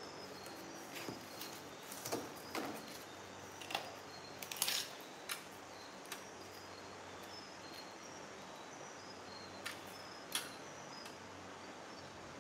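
Cardboard being handled and a steel square set on it while a line is marked with a pen: scattered taps, scrapes and rustles, the loudest a few seconds in. A faint high chirping repeats steadily underneath.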